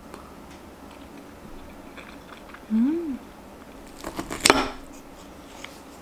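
A person eating at a table: quiet chewing, a short hummed 'mm' that rises and falls about three seconds in, then a quick cluster of clinks of cutlery against dishes at about four and a half seconds.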